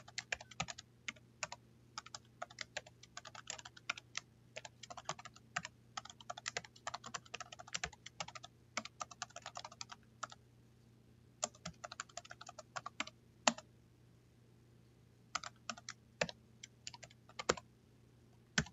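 Typing on a computer keyboard: quick runs of key clicks, broken by a few pauses of a second or two.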